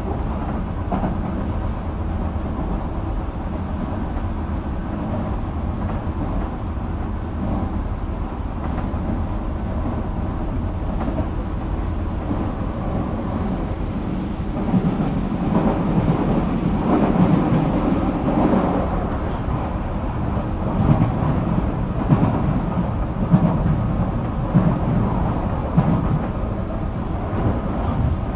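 Running sound of a JR Kyushu 305 series electric train heard inside a motor car: a steady rumble of wheels and running gear that grows louder and rougher about halfway, with a few sharp knocks near the end.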